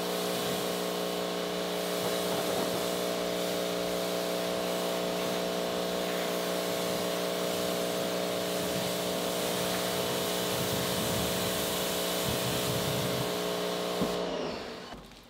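Pressure washer running with a steady hum while its wand sprays water in a hiss over a car's body and the floor, rinsing off soap. About a second before the end the spray stops and the pump's hum falls in pitch and dies away.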